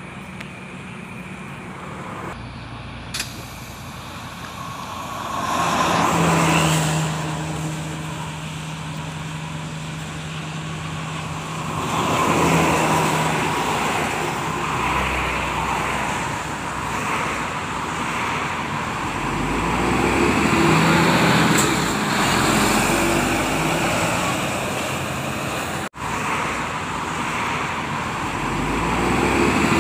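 Road traffic passing: several large vehicles swell and fade as they go by, one with a steady engine hum held for several seconds.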